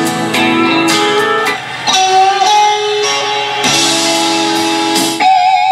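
A guitar song playing from an iPod through the auxiliary input of a 1954 Chevy truck's original AM radio, rebuilt with a modern stereo inside, and out of its speaker. A held, wavering note comes in near the end.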